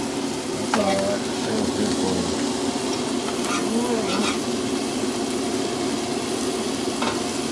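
Eggs and burger patties frying on a griddle and pan over a camp stove: a steady sizzle.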